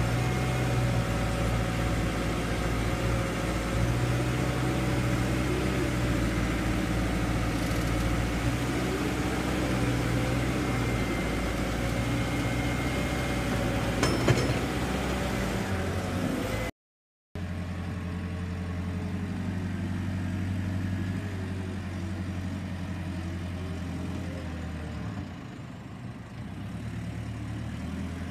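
JCB telehandler's diesel engine running steadily under load, its note wavering up and down as the machine works, with one sharp knock about fourteen seconds in. After a brief break, a telehandler engine runs again at a lower level.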